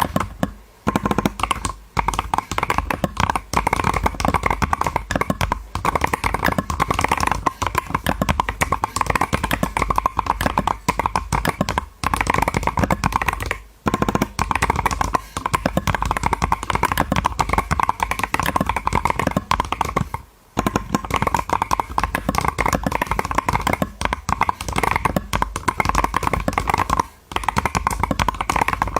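Fast typing on a computer keyboard: a dense stream of key clicks that stops briefly a few times.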